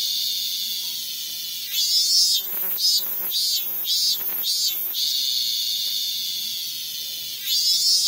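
Min-min cicada (Hyalessa maculaticollis) singing. Long steady high buzzes alternate with a run of pulsed notes, about three a second, in the middle. The song swells up again near the end.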